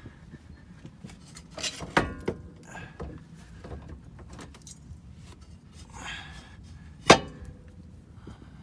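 Metal tools and suspension parts clinking and clanking as they are handled, with a few louder ringing clanks about two seconds in and one sharp metallic clank about seven seconds in.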